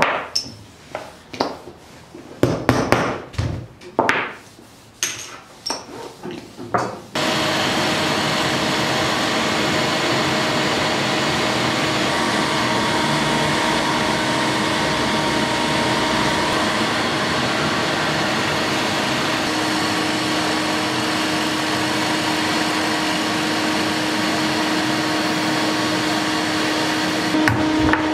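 Irregular hammer blows on metal bottle caps laid on a wooden block, about a dozen strikes. About seven seconds in, the hammering gives way suddenly to the steady running of a milling machine's motor, with a low hum growing stronger near the end.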